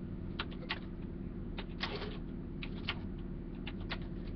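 Computer keyboard keys clicking in short, irregular runs over a steady low electrical hum.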